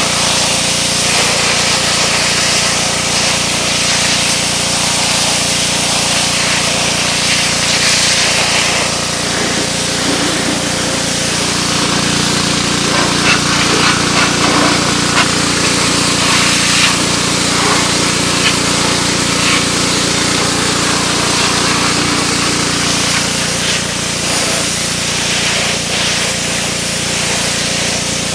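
Gas engine of a Simpson 3400 PSI pressure washer running steadily under load, with the hiss of water spraying from its newly replaced pump.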